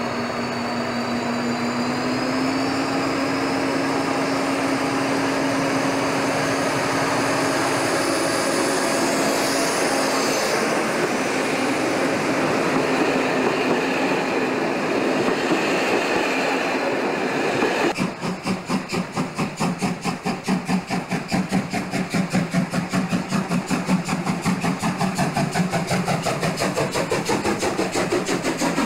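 A diesel locomotive hauling a train pulls away, its engine note and a high whine rising in pitch as it accelerates, then the coaches rumble past. About 18 s in this gives way suddenly to a steam locomotive working past close by, with rapid, even exhaust beats and hissing steam.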